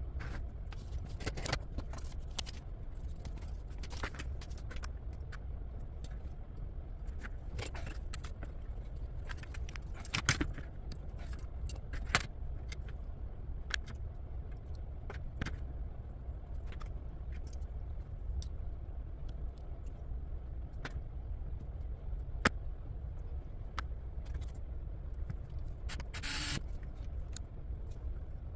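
Small metal RC car parts, screws and hand tools clicking and tapping as they are handled and set down on cardboard, over a steady low hum. Near the end a cordless electric screwdriver runs briefly, for about half a second.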